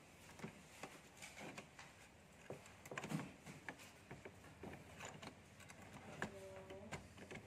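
Faint, scattered clicks and light taps of plastic parts and a hand tool being handled inside an Epson L3210 inkjet printer's carriage as the printhead is reseated.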